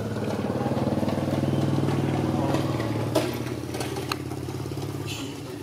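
A small engine running steadily, its hum easing slightly partway through, with a few sharp clicks in the second half.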